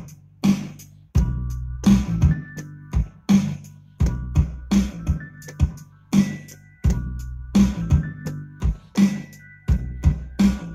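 Hip-hop beat from a Native Instruments Maschine whose pads are being played: a steady drum pattern of kick and snare hits with bass, and short sampled melodic chops over it.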